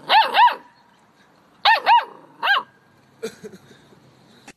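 Puppy barking in short, high-pitched yips: two quick pairs and then a single one, each bark rising and falling in pitch.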